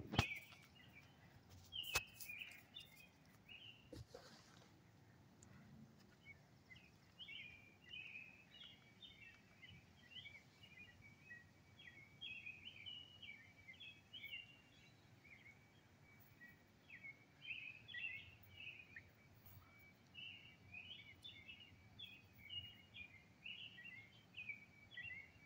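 Small birds chirping steadily in many short, high notes, faint, with a few sharp clicks in the first few seconds.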